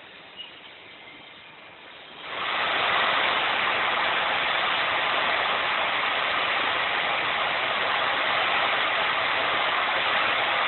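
Car mat making machinery starts up about two seconds in and keeps running with a steady, even rushing mechanical noise.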